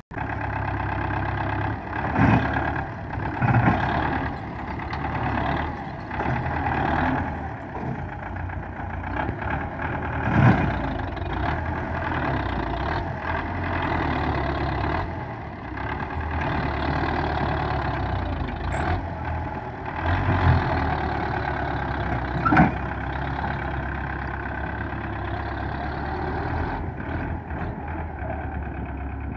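Belarus MTZ-510 tractor's diesel engine running under load as it hauls a sand-loaded trolley out of soft ground. A few sharp knocks break through the engine, the loudest about ten seconds in and again near twenty-two seconds.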